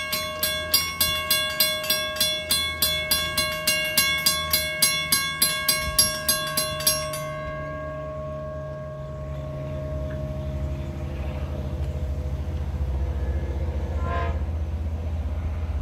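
Railroad grade-crossing bell ringing about two and a half strikes a second as the gates lower, stopping about seven seconds in. A train's low rumble then builds as it approaches, with a short horn blast near the end.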